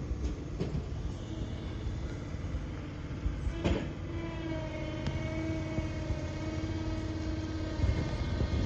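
Small tractor's engine running as it tows a home-built cement mixer over rough ground, with a low rattling rumble and a single clank a little before the middle; a steady whine joins in from about four seconds in.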